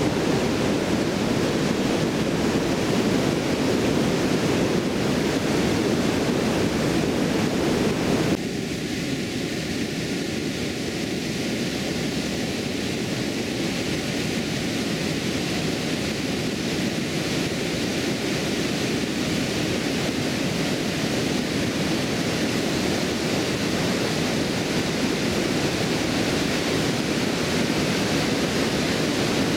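Water pouring over a stone weir and rushing through the river below: a steady, dense roar. About 8 seconds in it drops a little in level and turns thinner.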